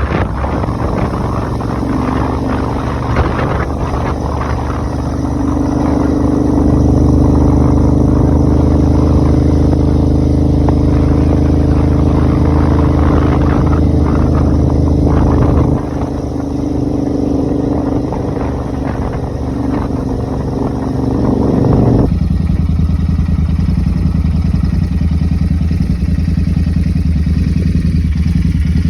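Royal Enfield Interceptor 650's parallel-twin engine running through modified exhausts. Its note grows louder about six seconds in, drops suddenly at about sixteen seconds, and settles to a lower, steadier sound after about twenty-two seconds.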